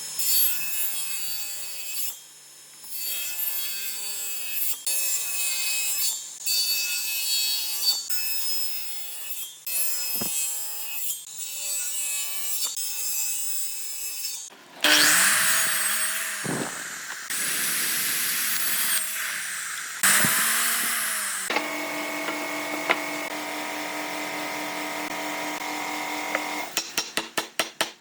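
Woodworking sounds in a string of short edited clips, mostly wood being sawn. A louder, harsher stretch of noise comes about halfway through, and a quick run of sharp taps near the end.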